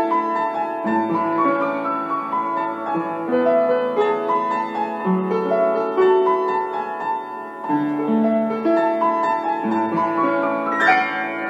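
Upright piano played in a slow, chordal piece, with notes and chords held about a second each. Near the end a sudden louder, noisier sound breaks in over the playing.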